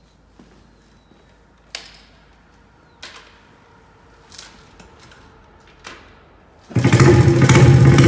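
A few faint clicks and knocks, then about 6.7 seconds in a custom Honda Monkey's four-stroke single-cylinder engine bursts into loud, steady running through its Pretty Racing exhaust.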